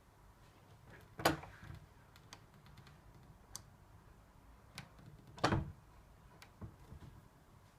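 Letterbox tool's lever flipper working at a door's inside lever handle through the letterbox: scattered small clicks and taps of metal on the door and handle, with two louder knocks, about a second in and about five and a half seconds in.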